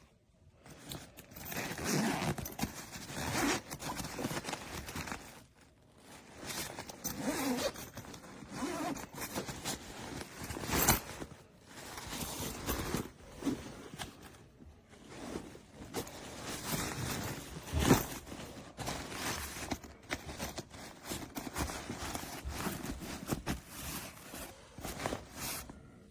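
Backpack zippers pulled open and shut again and again, with fabric rustling as the bag is handled, and two sharp knocks about eleven and eighteen seconds in.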